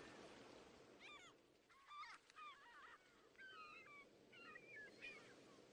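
Faint animal calls: a series of short chirps and warbles that rise and fall quickly in pitch, starting about a second in, after a faint hiss fades out.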